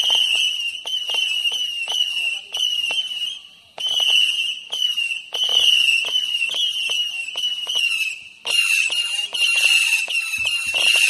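Dutch Dragon Omega fireworks battery firing whistling shots one after another: each launch pop is followed by a high, shrill whistle of about a second that cuts off. There is a short pause just before four seconds in, and in the last few seconds the whistles run together without a break.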